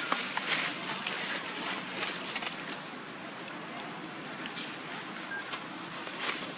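Outdoor ambience of a steady rushing noise, like wind on the microphone, with scattered crackles of dry leaves.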